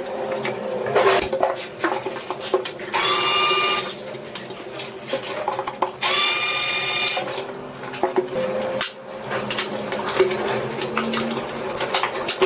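A small handheld power tool runs briefly twice, its motor whining up to speed and holding for about a second each time. Scattered clicks and taps of parts being handled come in between.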